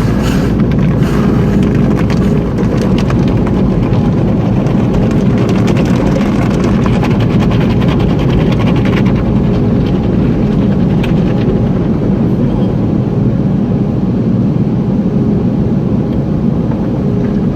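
Automatic car wash equipment working over the car, heard from inside the cabin: a steady, loud, deep rumble with a rushing hiss and faint ticks in the middle.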